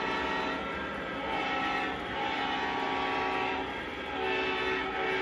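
Model train running with its onboard electronic sound system playing a steady, many-toned horn-like sound that shifts in pitch a few times, over a low rumble.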